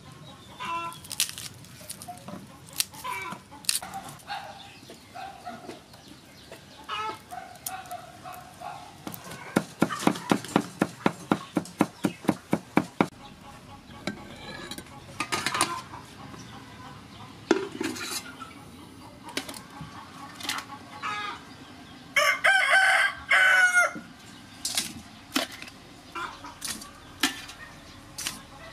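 Chickens clucking, and a rooster crows once for about two seconds near the end. About a third of the way in comes a quick, even run of about twenty knife strokes chopping garlic on a wooden board.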